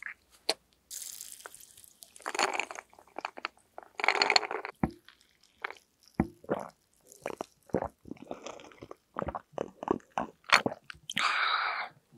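Close-miked ASMR mouth sounds: a run of sharp lip pops and kissing smacks with short breathy rushes, ending in a louder hissing rush about a second long.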